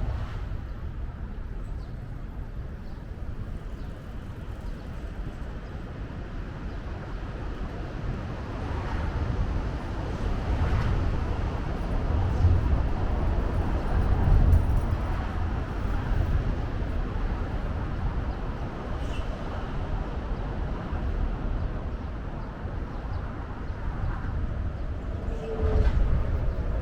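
Riverside city ambience: a low rumble that swells and fades over several seconds, with no single distinct sound standing out.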